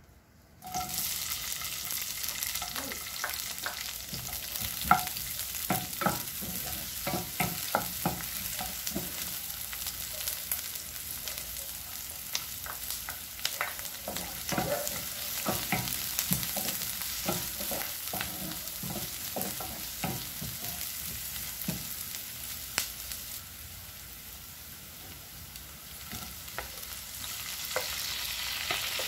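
Diced onion sizzling in hot oil in a nonstick frying pan. The sizzle starts suddenly about a second in, and a wooden spatula knocks and scrapes against the pan as the onion is stirred.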